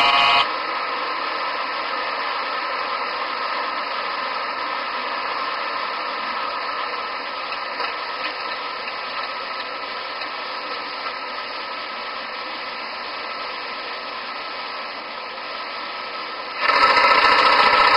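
Steady cockpit noise of a DC-9 in flight as picked up by the cockpit voice recorder: an even hiss and hum with no highs. A short pitched warning tone with several overtones sounds at the very start, and a louder one lasting about a second and a half comes near the end.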